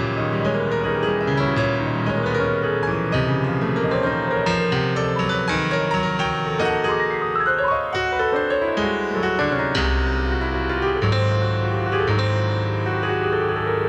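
Roland digital piano played solo: a flowing piece with many quick notes, with deeper bass notes held under the melody from about ten seconds in.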